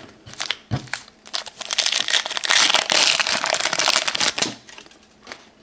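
Trading cards and their foil pack wrapper being handled: a single knock, then about three seconds of dense crinkling and clicking.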